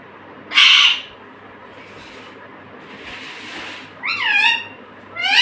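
Pet parrot calling: one harsh, noisy screech about half a second in, then two drawn-out calls near the end that rise and then fall in pitch.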